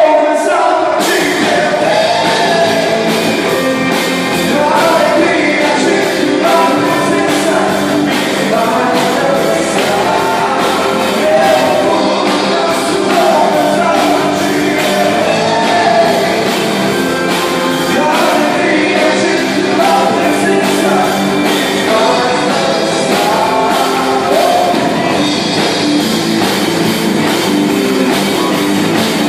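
A band playing a rock-style song with a singer's melody over guitar and drums, loud and steady throughout.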